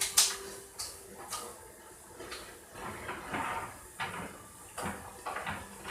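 Kitchen clatter: a series of sharp knocks and clicks as dishes and containers are handled, loudest near the start and again about four to five seconds in.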